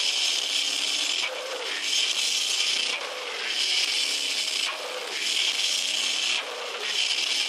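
Metal band playing live, with distorted guitars, bass and drums blurred into a harsh, bass-less roar by an overloaded handheld recording. The riff breaks briefly about every second and a half.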